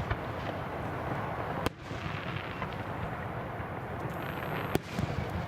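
Fireworks going off: a dense, continuous crackle of small bursts, broken by a few sharp bangs near the start, a little under two seconds in, and near the end.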